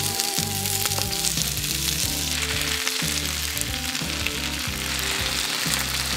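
Fresh spinach leaves sizzling in hot oil in a nonstick frying pan as they wilt, turned over with a wooden spoon.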